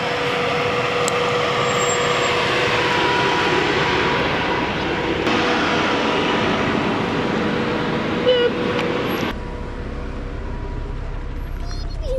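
A Jeep driving off-road, with steady engine and road noise and a faint steady whine. The noise changes abruptly twice, dropping quieter about nine seconds in.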